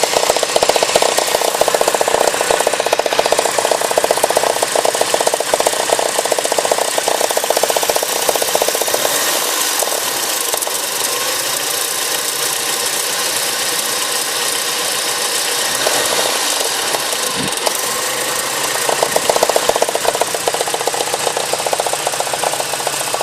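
Porsche 944 2.5-litre naturally aspirated four-cylinder petrol engine running with a fast, steady knocking from inside the engine, the knock that is the fault being shown. The knocking eases slightly in the middle and comes back stronger near the end.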